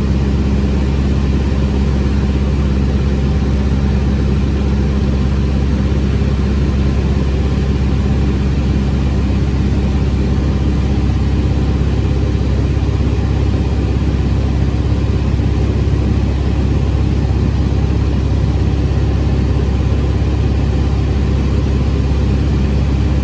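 Steady, unchanging drone of a light spotter plane's propeller engine, heard from inside the cabin.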